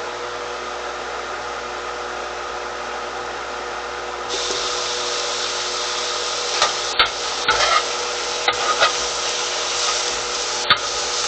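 Seasoned chicken strips sizzling in oil on a hot grill: a steady hiss that gets louder about four seconds in. Several sharp clicks and scrapes of a utensil against the grill come in the second half.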